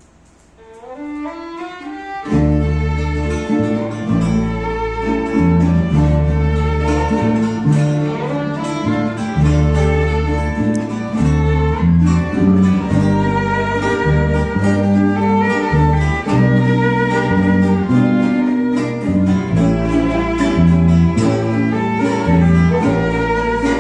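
Venezuelan string ensemble of cuatros, guitar, bass and violin playing a vals in D major. A rising run of notes opens it, and the full group comes in about two seconds in, the violin carrying the melody over strummed strings and a bass line.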